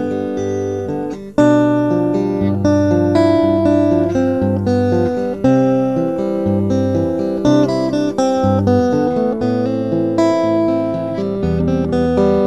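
Acoustic guitar playing an instrumental passage: a run of picked notes over low bass notes.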